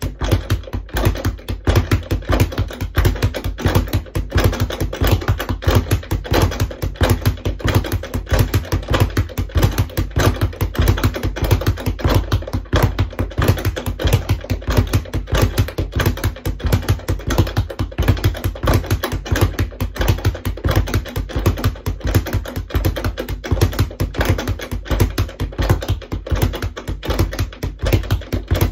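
Speed bag being punched in a fast, steady rhythm, a continuous rapid patter of thuds as the bag rebounds off its ceiling mount.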